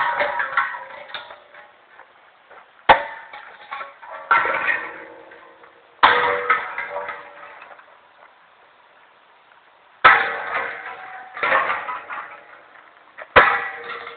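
Empty steel disposable refrigerant cylinders being struck hard to knock holes in them, about seven blows at uneven intervals, each one clanging and ringing out.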